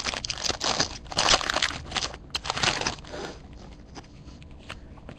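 Crinkling and rustling of a foil trading-card pack wrapper and cards being handled, in irregular bursts that are busiest in the first three seconds.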